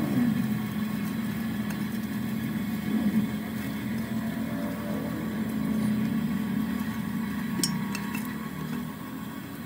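Handheld die grinder running steadily with a low, even hum as it works the built-up weld around the bearing seat of a truck differential housing.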